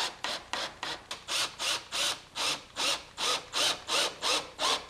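Cordless drill driving wood screws into a pine block, in an even series of short rasping pulses, about three a second.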